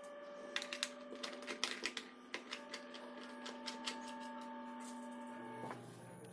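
Sharp plastic clicks and taps from an Xbox 360 wired controller's shell as it is handled and worked open, bunched in the first three seconds and sparser after, over soft held background music tones.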